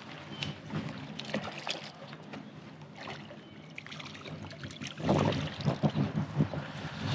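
Water splashing and sloshing as a hooked trout thrashes at the surface and is scooped into a landing net. The sound grows louder and more choppy from about five seconds in.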